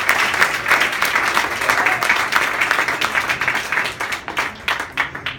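Audience applauding, the clapping thinning out to a few scattered claps and dying away near the end.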